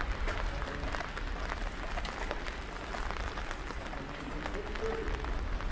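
Rain on a wet street: a steady patter made of many small drop ticks.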